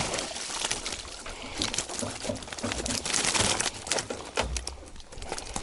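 Water trickling and dripping off freshly landed wild carp (sazan) as they are handled, with scattered clicks and rustles.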